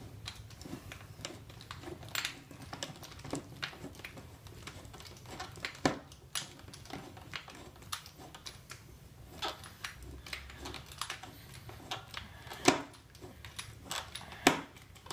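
Irregular light metal clicks and taps from a bolt being screwed in with a 5 mm Allen wrench, with a few sharper clicks about six seconds in and near the end.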